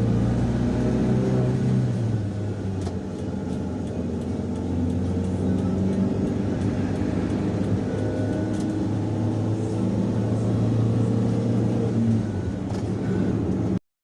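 Daihatsu Gran Max van's engine and road noise while driving, a steady low hum that eases off about two seconds in and builds again later. The sound cuts out abruptly just before the end.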